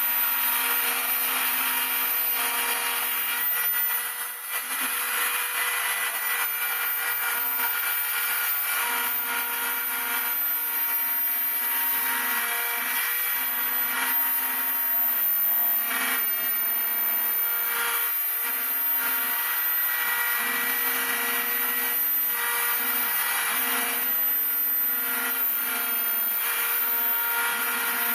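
Homemade CNC router milling wing ribs: the spindle runs with a steady high whine over cutting noise. A lower hum comes and goes every second or two as the machine moves, and the sound dips briefly about four seconds in.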